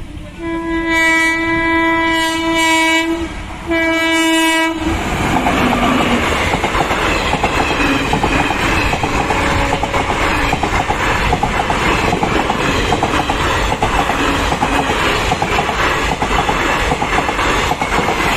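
Indian Railways WAG-7 electric locomotive sounding its horn in two steady blasts, the first about three seconds long and the second about a second, then the train rushing past at high speed with a fast rhythmic clatter of wheels over the rail joints.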